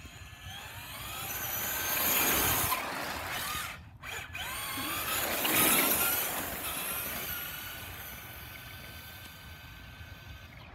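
Traxxas RC car's electric motor whining as the car speeds up, rising in pitch and then falling away, twice, with tyre noise on pavement; the second run fades off near the end.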